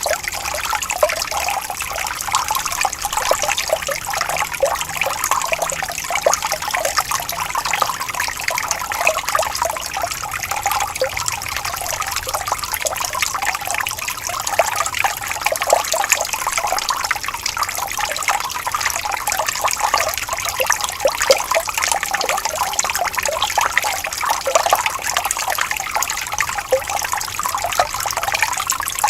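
Water flowing gently and trickling in a small stream, a steady babble of many small splashes.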